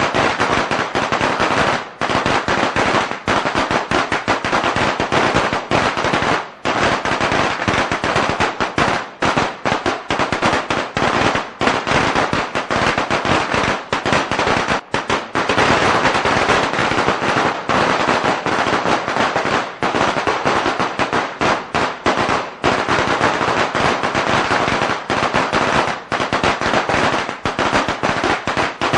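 A string of firecrackers going off in a continuous, rapid crackle of loud bangs, with only brief dips.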